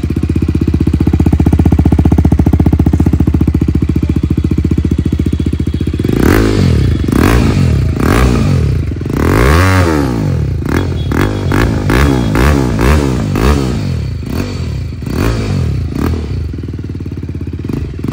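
BMW G310RR's single-cylinder engine, breathing through an aftermarket full exhaust system, idles steadily, then is revved about six seconds in. Quick throttle blips follow one after another to the end, each one rising and falling in pitch.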